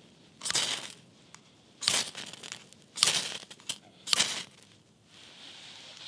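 Zippo MagStrike 5/16-inch ferro rod struck four times, about a second apart, each stroke a short scraping rasp that throws sparks onto the tinder.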